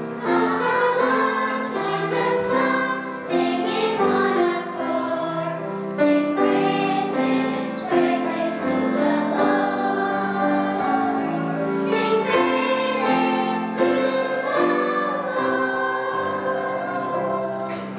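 A children's choir singing a praise song together, sustained sung notes moving from phrase to phrase.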